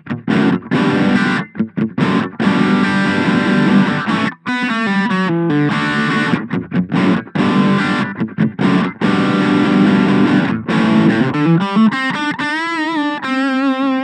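Electric guitar with a bridge humbucker played through a Boss Katana Mini 7-watt amp on its crunch setting, giving a distorted crunch tone. Chords are struck and cut off in short bursts with brief stops between them. Near the end the playing turns to single notes with vibrato.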